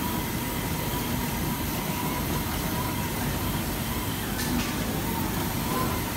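FK Universal 8 automatic fabric cutter running, its cutting head working through a spread of fabric under plastic film: a steady mechanical hum and hiss with a faint steady tone.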